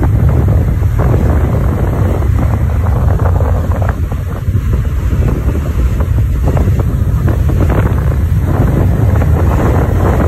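Loud, steady wind rushing and buffeting the microphone from the airstream at a moving car's open window, a deep continuous rumble.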